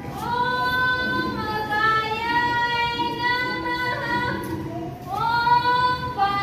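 Children's voices singing in unison in long, drawn-out phrases: two held notes, each sliding up at its start, the second about five seconds in.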